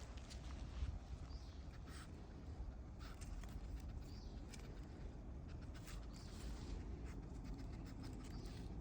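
Irregular light footsteps and scuffs on a path over a steady low rumble.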